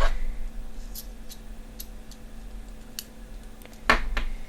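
Screwdriver bit being swapped in a bit driver: scattered sharp small clicks of metal on metal and plastic, with a louder knock near the end.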